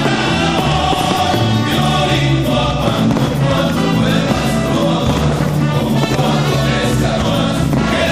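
Music: a choir singing held notes over a full accompaniment, the soundtrack of a pyromusical fireworks show.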